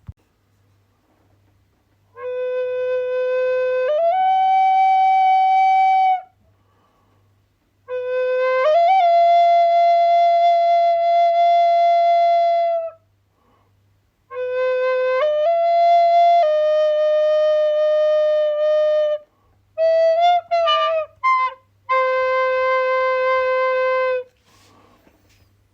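A flute playing slow phrases of long held notes, each phrase stepping up in pitch partway through, with short pauses for breath between them. Near the end there is a quick run of short notes before a final low held note.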